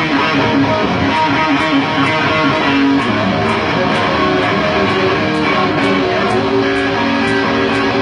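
Electric guitar strummed and played live through an amplifier, carrying a rock-and-roll intro, with a light high tick keeping time about twice a second.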